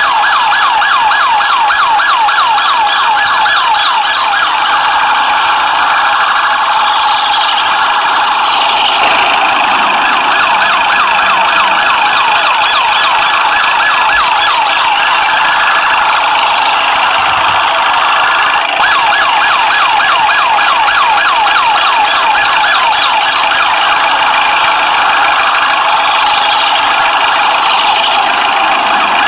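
Electronic toy police siren from a battery-operated toy police jeep: a fast, rapidly repeating warble that runs on with brief breaks about nine and nineteen seconds in.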